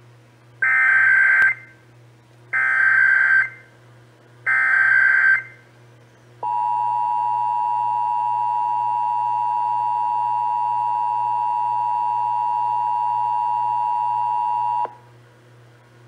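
Emergency Alert System required monthly test heard off AM radio through a Midland weather radio's speaker: three one-second bursts of the warbling SAME digital header tones, then the two-tone attention signal, held steady for about eight seconds before cutting off. A low hum runs underneath.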